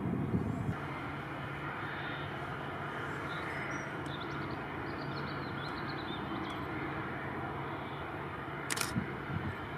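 Steady mechanical hum with a faint steady whine from an Airbus A320-214 airliner and its pushback tug idling on the apron. A sharp click comes near the end.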